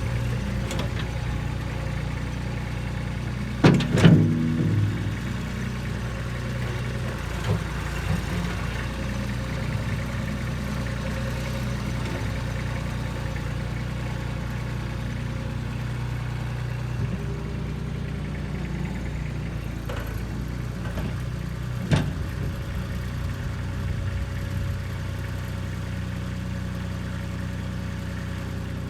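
Kubota B2630 compact tractor's three-cylinder diesel engine running steadily. A loud metallic clank comes about four seconds in and a sharp knock around twenty-two seconds, with a few lighter knocks between.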